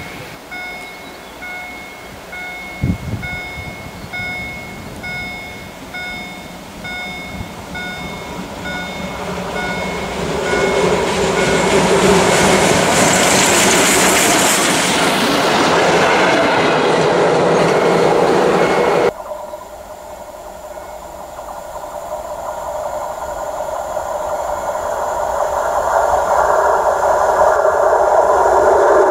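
Pt47 steam locomotive and its passenger coaches passing close by, rising to a loud rush of wheels and running gear over the track about ten to nineteen seconds in; over the first ten seconds a repeating electronic beep sounds about twice a second. After an abrupt cut the train approaches head-on, its sound rising steadily.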